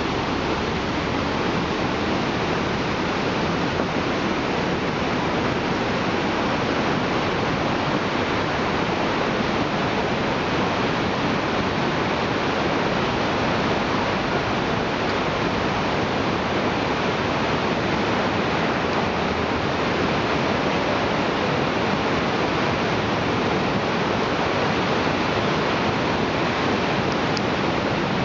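Steady rush of whitewater rapids, churning water pouring over and around boulders.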